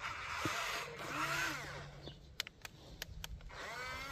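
Small electric motors of a radio-controlled construction model whirring, rising and then falling in pitch as they speed up and slow down, once about a second in and again near the end. A few sharp clicks come in between.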